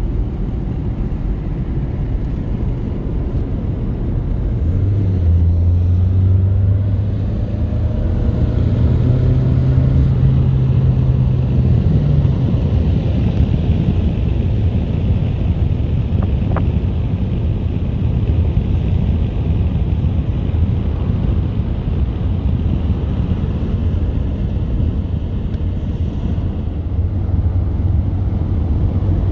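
Saab 9000 driving at speed, heard from inside the cabin: a steady engine drone over tyre and road noise. The engine note rises steadily from about five seconds in, then drops back at about twelve seconds and runs on evenly.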